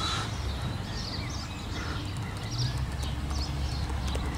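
Birds chirping and singing in short repeated calls over a steady low rumble.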